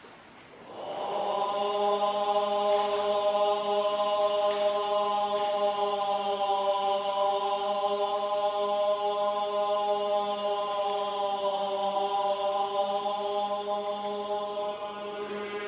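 Buddhist monks chanting in unison, starting about a second in and holding one long steady note.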